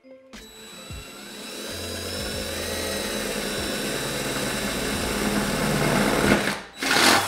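Cordless drill driving a bit with a stop collar through the sheet metal of a Toyota Tacoma's fender. It is a steady drilling whine that builds over the first couple of seconds and holds, stops briefly near the end, then comes back for a short, louder run.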